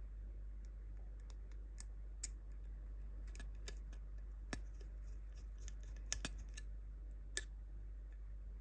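Screwdriver turning a small machine screw that holds a power transistor to its metal heatsink: irregular small metallic clicks and ticks, a few sharper ones in the middle, over a steady low hum.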